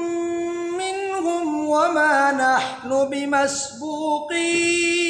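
A man reciting the Quran in the melodic, drawn-out tajweed style. His voice slides through ornamented notes and ends on a long held tone.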